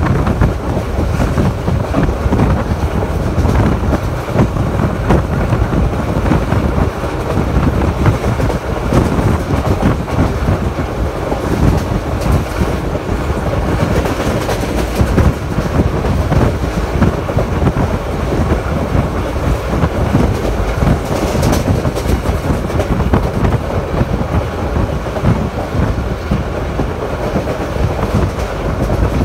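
Passenger train running along at speed, with a steady low rumble and the clatter of wheels on the rails, heard from inside a moving carriage.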